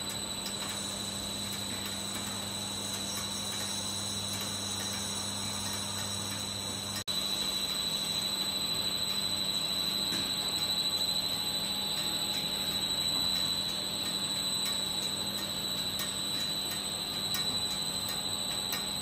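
Plastic netting extrusion line running: a steady machine hum under a constant high-pitched whine and an even mechanical hiss. The sound cuts out for an instant about seven seconds in and is a little louder after.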